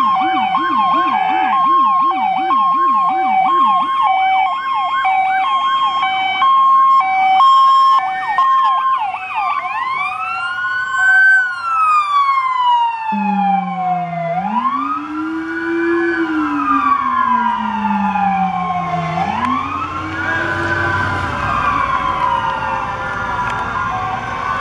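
Several emergency-vehicle sirens sounding together. At first a fast warbling yelp and an alternating two-tone hi-lo pattern, then from about ten seconds in slow rising and falling wails, with a deeper wail joining a few seconds later.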